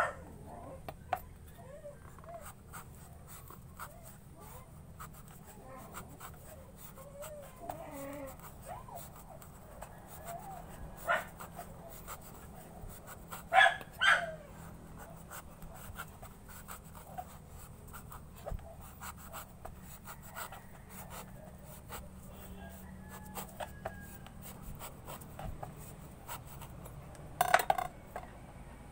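A kitchen knife scoring the thick rind of a pomelo and the fruit being handled on a plastic tray: scattered light clicks and scrapes, with a few sharper knocks about eleven, fourteen and twenty-seven seconds in.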